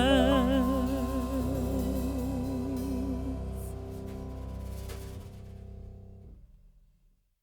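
Background music ending: a held sung note with vibrato fades in the first second or so, then sustained chords die away to silence near the end.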